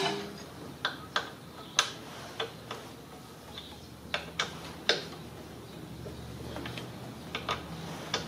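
Hand ratchet clicking as its socket turns out an engine mount bolt: about a dozen sharp, irregularly spaced clicks.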